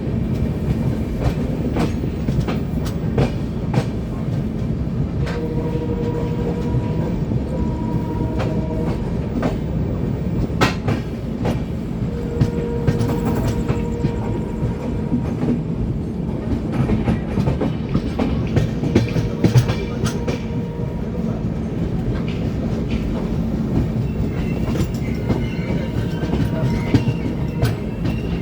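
Train running on rails: a steady low rumble with frequent clicks of the wheels over the rail joints, and a few brief high tones that come and go.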